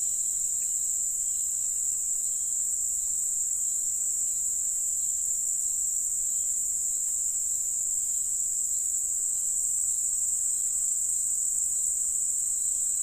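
Steady, high-pitched shrill of an insect chorus, unchanging throughout.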